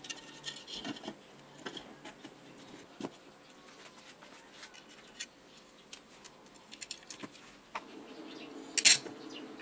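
Light handling of a jigsaw's plastic motor housing and its wiring: scattered small clicks, taps and rubs as the field-coil leads are threaded through, with one sharper click near the end.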